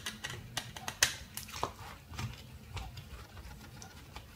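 Scattered light clicks and taps of a plastic housing and circuit board being handled as the board is taken out of the parking sensor's display unit, the sharpest click about a second in.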